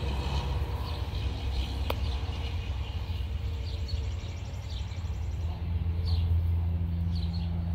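Outdoor ambience: a steady low rumble that grows stronger about two thirds of the way through, with short high chirps of small birds scattered throughout and a single click about two seconds in.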